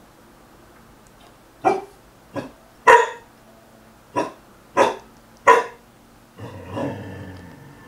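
Young black Labrador puppy barking, most likely at her own reflection in a mirror: six short, sharp barks spaced roughly half a second to a second apart, then a longer, lower grumbling growl near the end.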